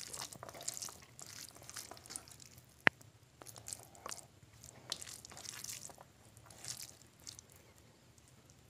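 Fingers mixing and squeezing oily, curry-soaked biryani rice on a steel plate: soft, wet squishing and rustling that comes and goes, with one sharp click about three seconds in.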